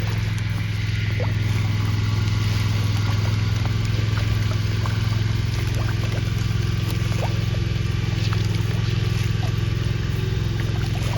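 A motor or engine running steadily with a constant low hum, with faint scattered ticks over it.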